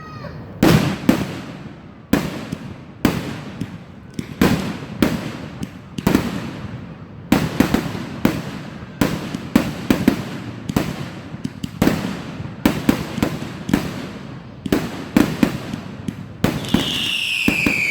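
Fireworks going off in a rapid, irregular series of sharp bangs, each with a rumbling tail. Near the end a whistling firework sends out a falling whistle.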